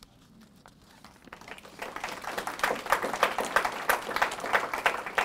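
Audience applauding: a few claps start about a second in and swell quickly into full, steady applause.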